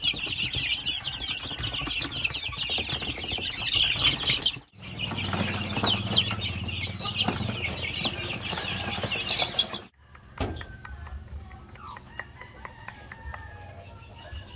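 A brood of young chicks peeping nonstop, a dense high-pitched chatter that breaks off twice at cuts. After about ten seconds it turns quieter, with soft clucking from hens and a few light clicks.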